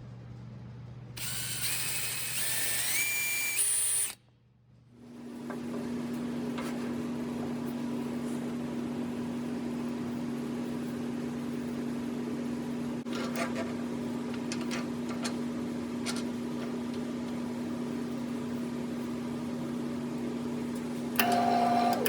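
Wood lathe running: a whine steps up in pitch for a few seconds, then the motor settles into a steady hum at constant speed. A few light ticks come around the middle, and there is a short louder burst near the end.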